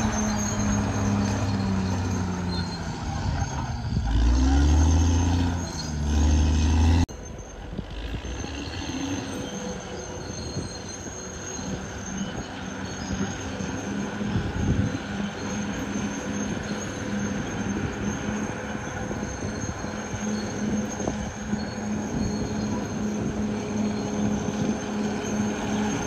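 Caterpillar D6R XL bulldozer's diesel engine working, its pitch rising and falling with changing load for about the first seven seconds. It then cuts suddenly to a quieter, steadier running sound.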